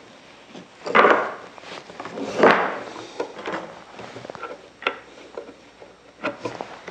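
Wooden chair-frame pieces knocking and sliding on a workbench as they are handled and set in place: two louder knocks about a second and two and a half seconds in, then light taps and clicks.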